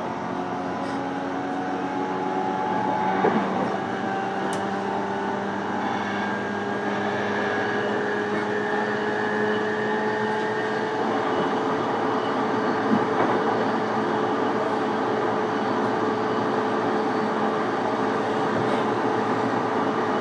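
Running sound inside an E233-series electric train's motor car: the inverter and traction-motor whine rises slowly in pitch and then levels off as the train picks up speed, over steady wheel and rail noise.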